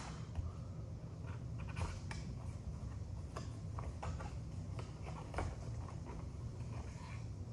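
Scattered light clicks and taps from handling a small bottle of pepper extract and its packaging, over a steady low hum.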